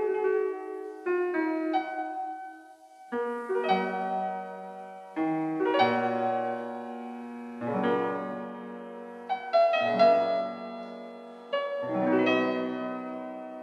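Slow solo piano music: chords struck every second or two, each left to ring and fade before the next.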